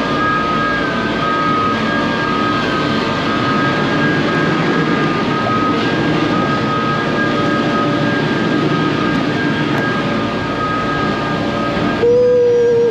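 Steady road and engine noise of a vehicle driving, with a faint steady whine over it. Near the end it gives way suddenly to a louder held tone.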